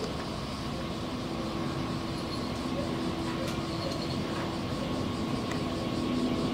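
Steady background rumble with a faint, even hum and no distinct events.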